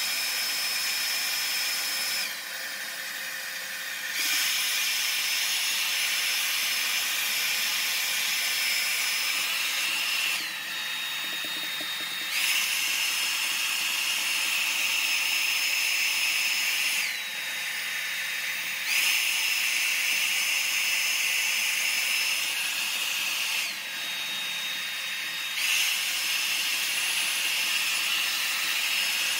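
Handheld hair dryer blowing steadily, a rushing air noise with a high motor whine. Four times the whine drops lower and the dryer runs quieter for about two seconds before coming back up.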